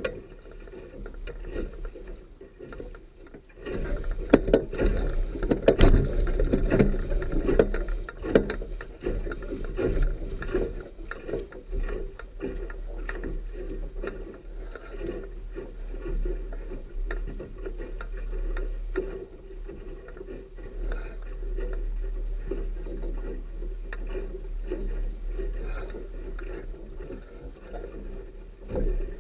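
Water rushing and slapping against a Sunfish sailboat's hull as it sails, in irregular splashes over a steady low rumble, growing louder about four seconds in.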